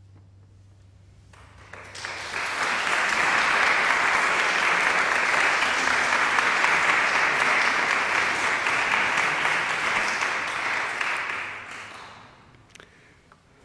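Audience applauding at the end of a song. The clapping swells in about two seconds in, holds steady, and dies away near the end.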